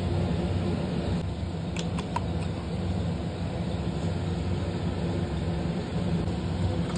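Steady low machine hum, like a running motor or fan, with a few light clicks about two seconds in.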